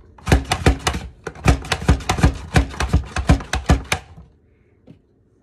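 Pampered Chef Rapid-Prep Mandoline's plunger pushed down again and again, cutting small potatoes into fries: a quick, uneven run of sharp clacks that stops about four seconds in.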